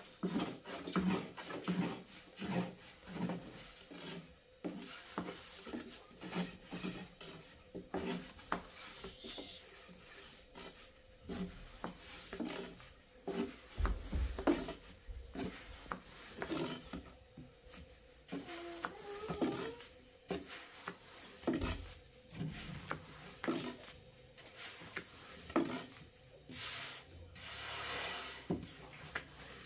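Long thin wooden rolling pin rolling flatbread dough on a round wooden board: repeated rubbing, knocking strokes, about two a second at first, then more irregular, with a couple of heavier thumps in the middle.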